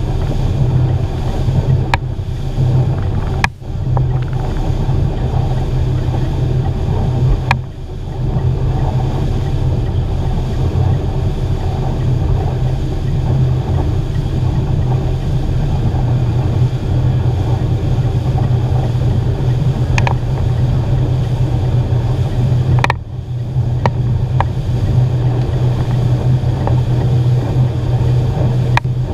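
Boat outboard motor running steadily at towing speed, a constant low engine hum over the rush of the churning wake and wind. The sound drops out briefly three times.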